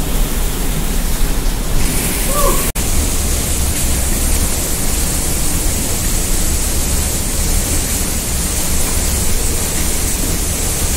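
Cold stream water rushing over rocks through a narrow rock cave channel, a steady loud rush. A short faint voice calls about two seconds in.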